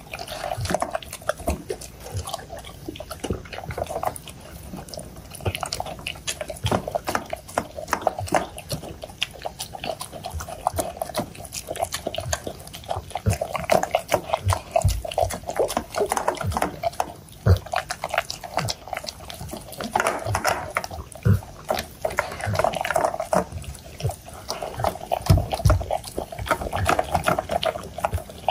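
Labrador retriever eating chopped vegetable puree from a stainless steel bowl: continuous wet chewing and lapping with rapid, irregular clicks and smacks.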